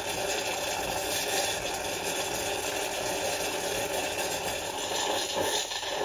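Casabrews 3700Pro espresso machine's automatic milk frother steaming and frothing milk: a steady hiss with a machine hum that dies away near the end as the frothing cycle finishes.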